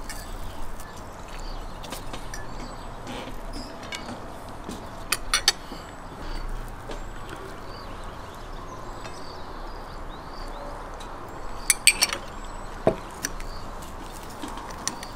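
A metal spoon clinking against a glass sauce boat and a ceramic plate as tomato sauce is spooned out: a few sharp clinks about five seconds in and a quick cluster near twelve seconds, followed by one dull knock.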